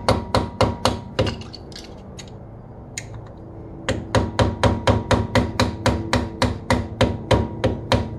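Small ball-peen hammer tapping a punch against the steel side-bearing adjuster of an AAM 11.5 differential, turning it slot by slot to set carrier bearing preload. Quick, even metal-on-metal taps, about four or five a second. They stop about a second in, leaving only a few faint taps, and resume near the middle.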